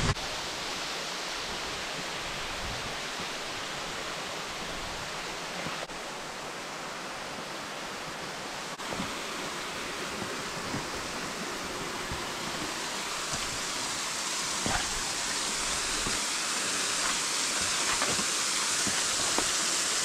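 Steady rush of falling water, growing slowly louder toward the end, with a few faint knocks.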